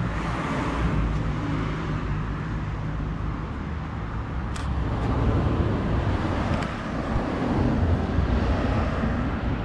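Street traffic ambience: a car passing, its engine and tyre noise swelling in the second half, with a short sharp click about halfway through.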